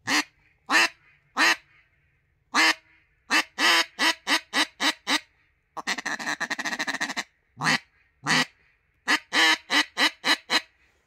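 3D-printed PETG double-reed duck call with mylar reeds, blown as a raspy run of mallard hen quacks: a few spaced quacks, a string of quicker ones, a fast rattling chuckle about six seconds in, then more quacks in quick succession.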